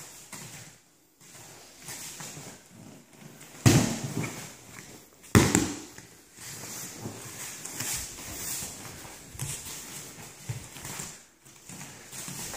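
Two heavy thumps of a body taken down onto foam martial-arts mats, about a second and a half apart, during a jujitsu takedown into an arm lock pin. Around them come the rustle of heavy cotton gi fabric and bodies and bare feet shuffling on the mats.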